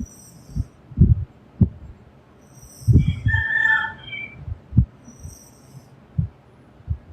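A girl snoring: short, low, rattling snores at uneven intervals, heaviest about a second in and around three seconds in. A brief high whistling tone sounds around three to four seconds in.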